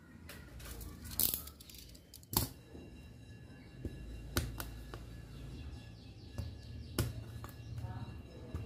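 Sharp, separate clicks and taps every second or two over a low steady hum: small tools and parts being handled on a work surface.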